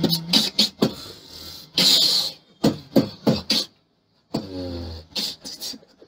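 Vocal beatboxing: mouth kick and snare clicks in a broken rhythm, a hissed cymbal sound about two seconds in, and a short hummed bass note just after a brief pause past the middle.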